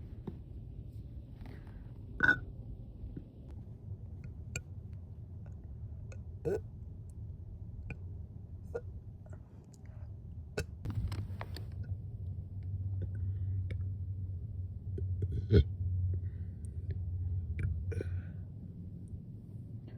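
A woman's short, abrupt throat sounds, small hiccup-like burps or gulps of air, as she tries to burp on command after chugging sparkling water. There are a few of them, the loudest about two seconds in and again about fifteen seconds in, over a low steady hum.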